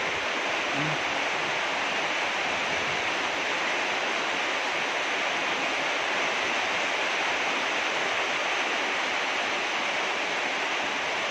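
Heavy rain falling, a dense steady hiss that fills the sound without let-up.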